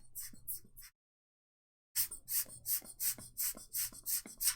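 Quick repeated rubbing strokes on a circuit board, about three a second, working the cleaning alcohol off it before flux goes on.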